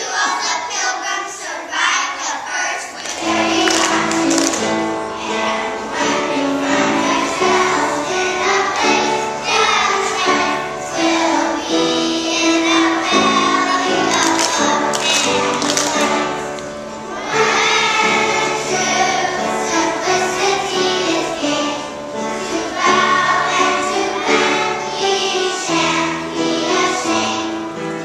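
A group of young children singing together. About three seconds in, an instrumental accompaniment with low sustained notes joins them.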